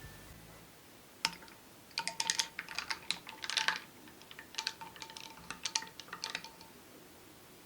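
Irregular runs of quick, light clicks and taps, some with a faint ringing tone behind them, starting about a second in and stopping near the end.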